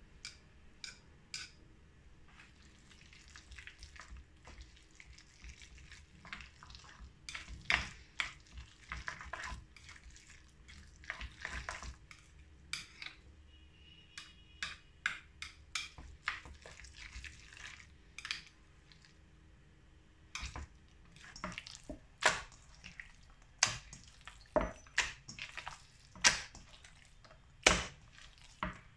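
Chopsticks stirring minced pork and shredded white radish in a stainless steel bowl, with irregular clicks and scrapes against the metal. Near the end the mixture is worked by hand in the bowl, with sharper knocks about once a second.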